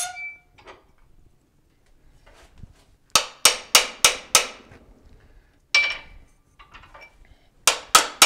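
Hammer blows on a metal piece clamped in a bench vise, bending it. The first strike gives a metallic clang with a brief ring. Then come a quick run of five blows about three a second, a single blow, a few light taps, and a fast cluster of blows near the end.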